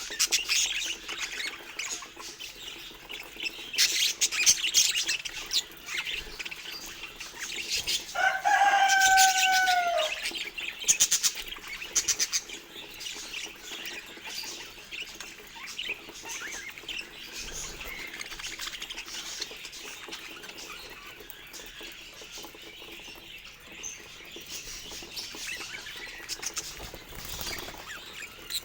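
Budgerigars chirping and chattering in quick high notes, busiest in the first half. About eight seconds in there is a louder, lower held call that dips slightly in pitch over about two seconds.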